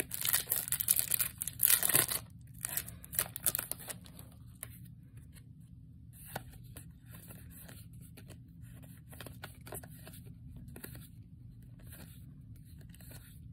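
A foil booster pack being torn open by hand, loud crinkly tearing over the first few seconds, followed by quieter rustling and soft clicks as the trading cards inside are slid and flipped through one by one.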